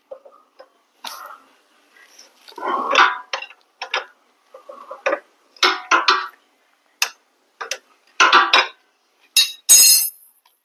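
Hand tools working on a motorcycle's rear wheel and brake parts: irregular metallic clicks, knocks and clinks, some in quick little clusters, with one sharp ringing clink near the end.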